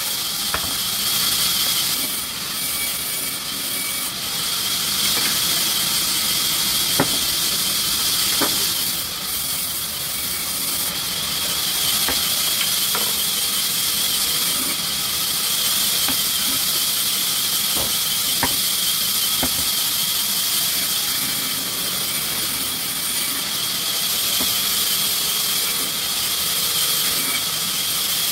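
Sawmill machinery running: a steady, high-pitched hiss with a few faint scattered clicks.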